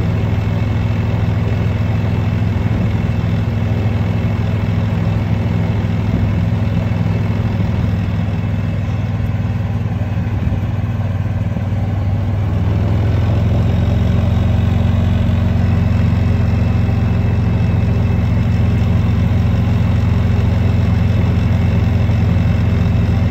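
Golf cart engine running steadily as the cart drives along, a low even hum that grows a little louder about halfway through.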